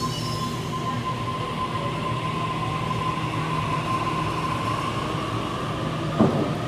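Sydney Trains double-deck electric train moving past the platform: a steady rumble with a steady high whine over it that fades out near the end, and one sharp clack about six seconds in.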